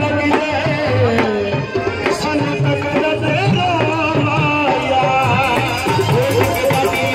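Live folk music: a man singing a wavering, ornamented melody into a microphone over a steady hand-drum beat.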